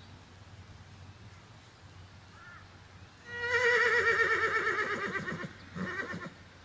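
A horse whinnying: one long, quavering call that falls in pitch over about two seconds, starting about a third of the way in, then a shorter, lower, pulsing part near the end.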